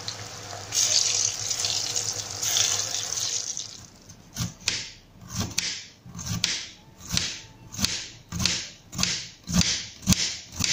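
Steady sizzling hiss of food frying in hot oil in a pan. About four seconds in this gives way to a kitchen knife slicing bitter gourd into thin rounds on a wooden cutting board, a regular chop about one and a half times a second.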